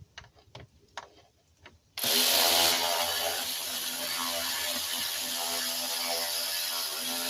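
A few light metallic clicks, then about two seconds in a cordless power tool starts and runs steadily for about five seconds, driving a small screw or nut tight.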